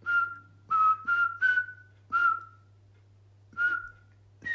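A string of seven short whistled notes, each starting sharply and fading quickly, all at much the same pitch except the last, which is higher. A faint steady low hum runs underneath.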